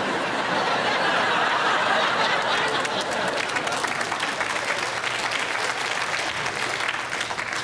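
Audience applauding: a dense, steady round of clapping that swells up at the start and dies away near the end.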